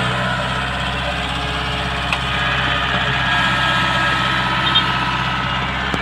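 Kubota DC-70 Pro combine harvester's diesel engine running steadily as the tracked machine creeps forward, a low hum with a steady whine above it. A faint click comes about two seconds in.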